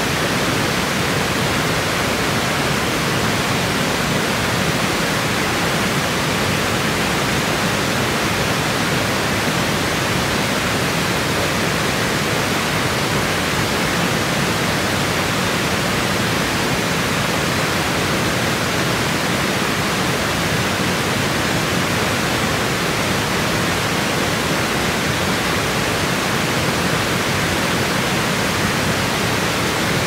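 Water pouring over a low weir and rushing through rocky rapids: a steady, unbroken rush.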